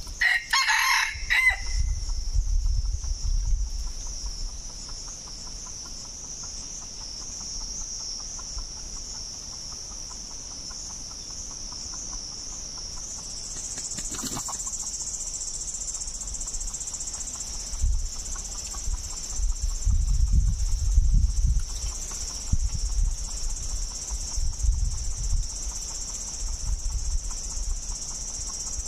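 A red junglefowl rooster crows once, a short crow right at the start, with a much fainter call about halfway through. Insects drone steadily and high.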